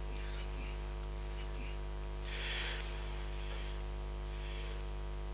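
Steady electrical mains hum through a public-address system, with faint background noise and a soft brief hiss about two and a half seconds in.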